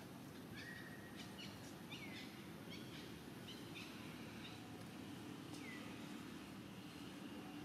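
Faint, short high-pitched animal chirps, several falling in pitch, repeating irregularly over a steady low outdoor background noise, with a low hum coming in past the middle.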